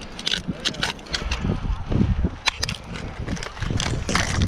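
Ice axes striking and chipping into the ice of a frozen waterfall: a run of sharp, irregular clicks and knocks over a low rumble.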